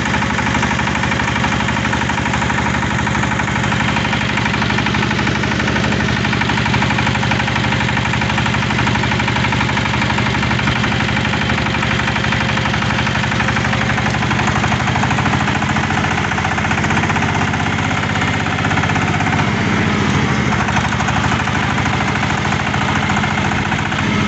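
Tobata micro tractor engine running steadily at an even speed, loud and unchanging throughout.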